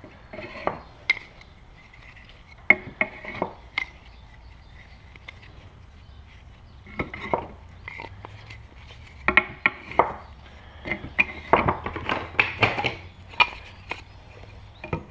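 Wooden beehive frame sidebars being set into a wooden assembly jig: irregular clacks and knocks of wood on wood, in scattered clusters that come thicker in the second half.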